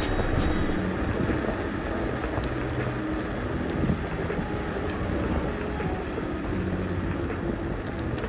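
Steady rush of wind and road noise on a camera riding along with a road bicycle on a paved lane.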